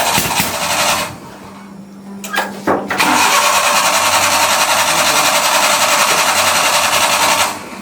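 Suzuki mini truck engine cranking on the starter without catching: one crank cuts off about a second in, then after a short pause with a couple of knocks a second long crank runs until near the end.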